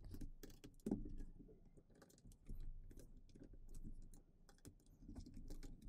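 Faint, irregular plastic clicks and taps from a Gamakay LK67 keyboard as the retaining clips of its top case are pushed back and loosened one by one.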